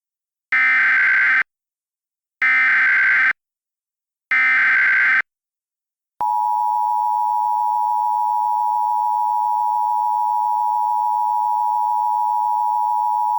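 Emergency Alert System broadcast signal: three short bursts of data-modem screech (the SAME header), then a long, loud, steady two-tone attention signal. Together they announce a new civil emergency alert.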